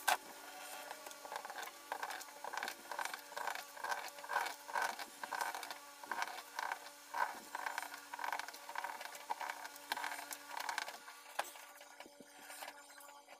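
Rhythmic scraping on the glass of an LCD TV panel, about two or three strokes a second, as the burnt polarizer film is worked off, over a faint steady hum. The strokes die away near the end.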